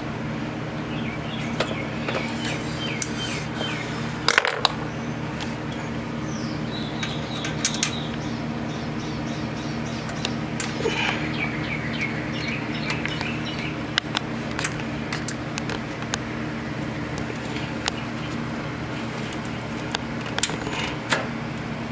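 Sharp metal clinks and taps of a screwdriver and bolt against the alternator and its mounting bracket as the alternator is worked into line with its bolt hole. The loudest clatter comes about four and a half seconds in, with more near the end. A steady mechanical hum runs underneath, and birds chirp in short quick runs.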